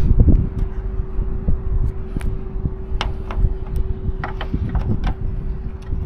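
Several light, sharp clicks and knocks over a low, uneven rumble and a steady hum.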